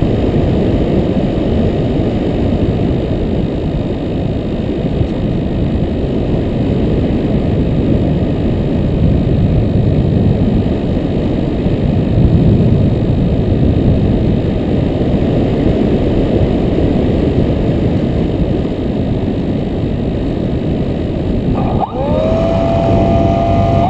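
Steady wind rumble buffeting the microphone. Near the end, the quadcopter's motors spin up with a rising whine that then holds at a steady pitch.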